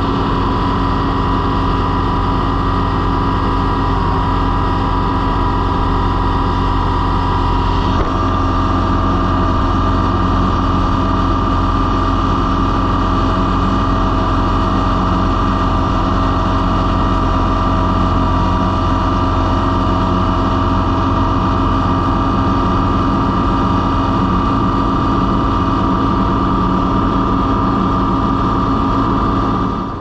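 Kubota B2650 tractor's three-cylinder diesel engine running at a steady speed, a constant drone with a slight change in tone about eight seconds in.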